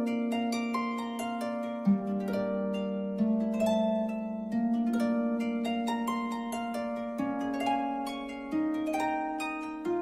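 Instrumental background music: quick plucked-string notes, harp-like, over held low notes that step to a new pitch every second or two.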